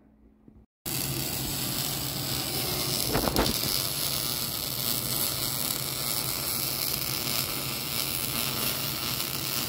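Arc welding on an aluminium pontoon frame: a steady hissing arc noise that starts about a second in and keeps going.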